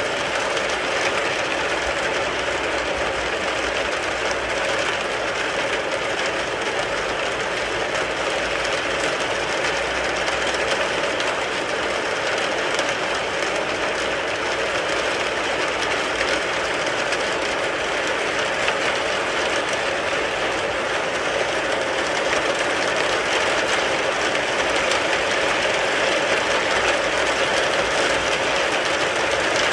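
Steady rain falling on a car, a dense, even patter of drops on the body and glass that holds at one level throughout.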